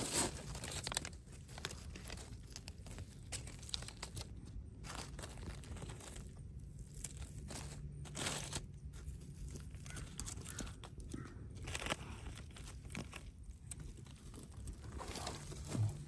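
Dry fallen leaves crackling and rustling in short irregular crunches as hands pick small mushrooms out of the leaf litter.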